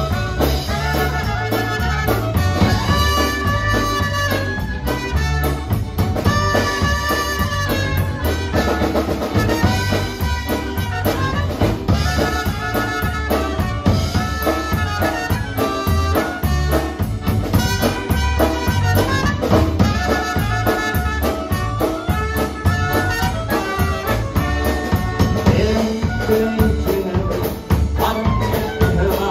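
Live band playing an instrumental dance tune on trumpet, saxophone, accordion, electric bass and drum kit, with the melody phrases riding over a steady pulsing bass and drum beat.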